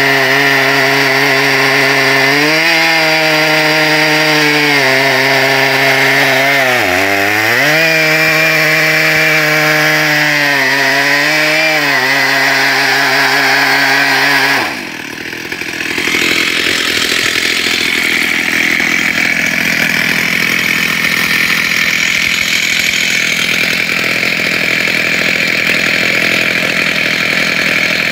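Stihl chainsaw in a chainsaw mill ripping an ash log lengthwise under full throttle. Its engine note wavers with the load and sags deeply about seven seconds in as the saw bogs in the cut. About fifteen seconds in the sound cuts abruptly to a steady rushing noise with no clear engine note.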